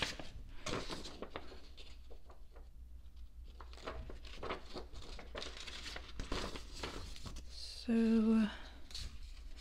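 Paper crinkling and rustling in the hands, an irregular run of short crackles, as a folded paper poster and other album inclusions are handled.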